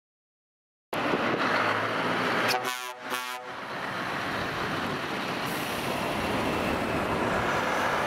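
Heavy trucks in a slow parade driving past, diesel engines running, with two short horn toots about two and a half seconds in. The sound cuts in abruptly about a second in.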